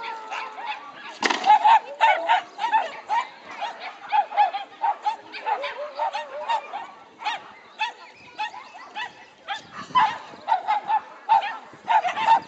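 Shetland sheepdog barking in quick, repeated short barks, several a second, while running an agility course. There is a brief lull about a second in and a thinner stretch a little past halfway.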